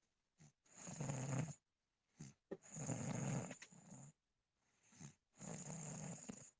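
Snoring during sleep: three snores in a row, each about a second long with a short snuffle just before it, and brief pauses between.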